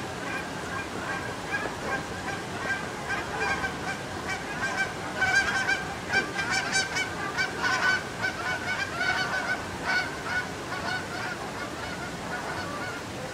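A flock of birds honking, many short calls overlapping, busiest and loudest around the middle.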